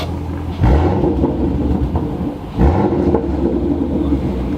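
Ford Mustang engine on its stock exhaust, before headers are fitted, idling with a low rumble and blipped twice, about two seconds apart.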